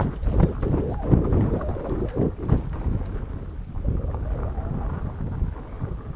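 Fat-tyre mountain bike riding over a rough trail: a low rumble with irregular knocks and jolts, and wind buffeting the microphone.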